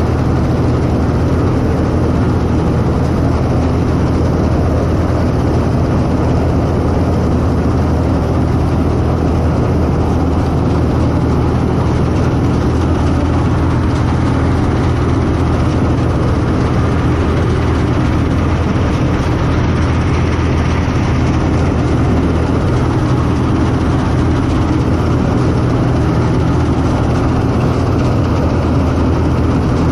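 CLAAS Mercator 50 combine harvester running steadily while threshing wheat, its engine and threshing machinery heard from the open operator's platform as a loud, constant low drone.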